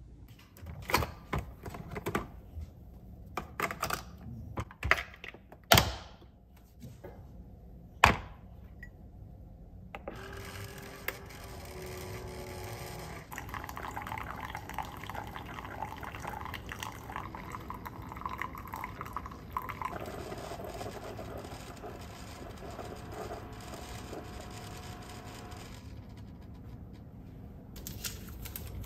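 A fork clicking and scraping in a plastic container of salad, with sharp taps, the loudest about six and eight seconds in. Then, from about ten seconds in, a Keurig single-serve coffee maker pumping and streaming coffee into a glass mug: a steady hum and trickle that shifts in pitch a couple of times and stops a few seconds before the end.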